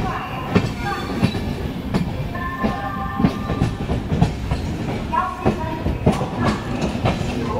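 Passenger train coaches rolling slowly through a station over rail joints and points: a steady rumble with irregular clattering knocks of the wheels, several a second.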